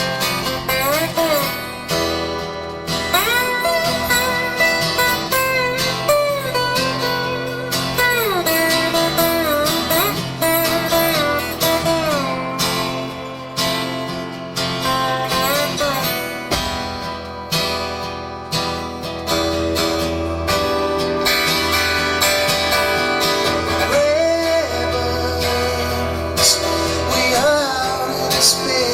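Live band music led by guitar, its notes bending and sliding over a steady bass line.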